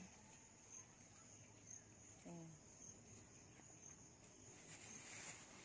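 Near silence with faint insect song: a steady high-pitched trill that brightens in pulses about once a second.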